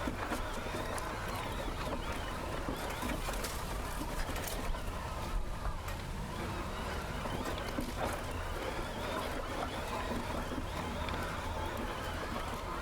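Mountain bike riding along a dirt trail: wind rumbling on the microphone over a steady rattle of tyres and bike parts, with scattered small knocks from the ground.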